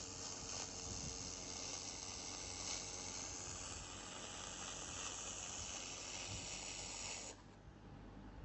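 Steady hiss from a 2000 W handheld laser welder working a 4 mm mild steel corner joint without filler wire. The hiss cuts off abruptly about seven seconds in.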